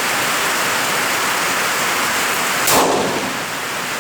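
One rifle shot from a 6mm Creedmoor Howa 1500 about two-thirds of the way in, with a short ring after it, over steady rain drumming on a tin roof.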